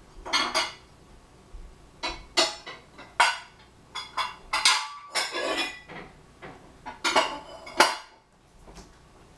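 Kitchenware clattering: dishes and utensils knocked and set down in about eight irregular bursts, some with a short ring.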